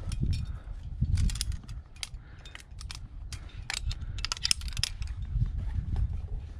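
A climbing quickdraw being clipped to a steel bolt hanger: carabiners clinking and gates snapping, in sharp metallic clicks, a cluster about a second in and a denser flurry around four to five seconds in, over a steady low rumble.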